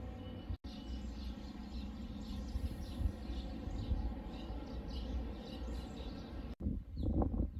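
Small birds chirping in quick repeated notes over a steady low rumble, broken by two sudden cuts. After the second cut, near the end, a rougher, louder sound takes over.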